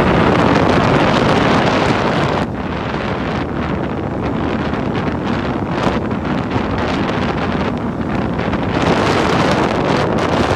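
Wind rushing and buffeting the microphone of a vehicle moving along a road, mixed with its road noise. It is somewhat quieter about two and a half seconds in and grows louder near the end.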